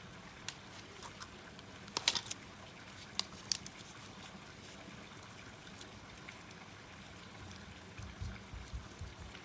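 Wood fire crackling in a small wood stove: irregular sharp pops over a faint steady hiss, with a quick cluster of pops about two seconds in. A few low thumps come near the end.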